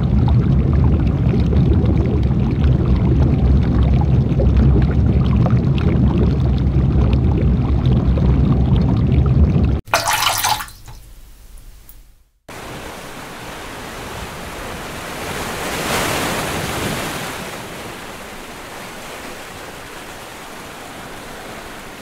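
Steady rushing roar of a large waterfall, loud and deep. It cuts off about ten seconds in, and after a short gap it returns as a softer, hissier rush that swells a few seconds later and then eases.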